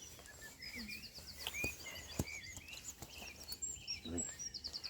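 Several birds singing and chirping, with a short rapid trill near the end. A single sharp knock a little over two seconds in.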